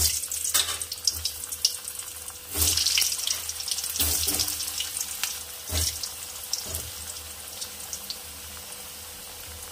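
Potato chunks sizzling and crackling in hot mustard oil, flaring louder each time more pieces drop in during the first six seconds, then settling into a steady frying hiss.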